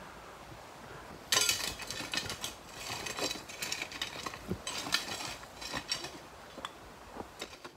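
A large rock being moved over stone and gravel, scraping and grinding, with small stones clattering. It starts suddenly about a second in and goes on in uneven bursts of scrapes and clicks, thinning out near the end.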